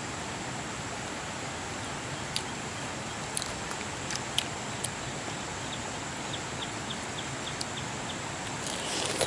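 Steady outdoor background hiss with a faint high steady whine, a few sharp clicks, and a brief run of quick high chirps, about four a second, starting about six seconds in.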